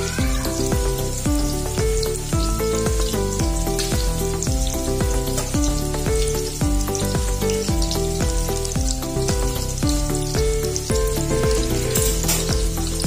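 Breaded shrimp nuggets frying in hot oil in a pan, with a steady crackling sizzle. Background music with a steady beat plays over it.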